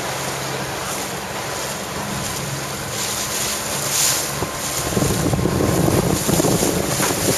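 Wind buffeting the microphone over the sound of choppy water; the buffeting grows heavier and louder about five seconds in.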